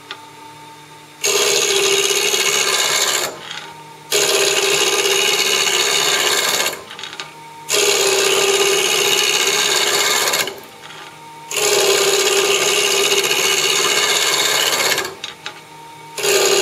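A 3/4-inch spindle gouge rough-cutting a spinning wooden blank on a Grizzly variable-speed wood lathe, making a loud, rasping wood-cutting noise as it turns the blank into a cylinder. There are four long passes of a few seconds each, and a fifth starts near the end. In the short pauses between passes only the lathe's quiet motor hum is left.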